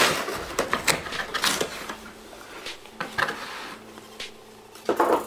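Cardboard shipping box being torn open by hand: a run of scraping and ripping as the flap is pulled up, quieter for a couple of seconds, then another loud rip near the end.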